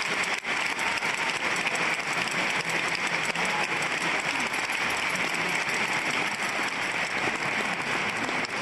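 Large concert-hall audience applauding steadily at the end of the piece.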